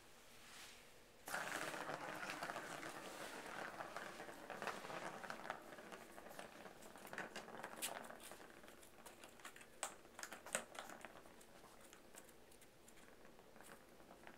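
A cat scratching and treading on a corrugated cardboard scratcher pad: a rasping scratch starting about a second in and fading after several seconds, then scattered clicks and taps.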